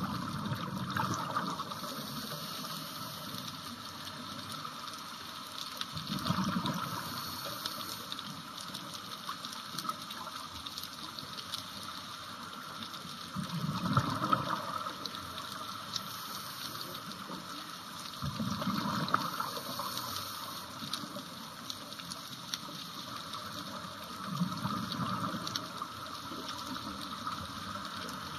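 Heard underwater, a scuba diver breathes out through the regulator: a rush of bubbles about every five to six seconds, five times, over a steady underwater hiss.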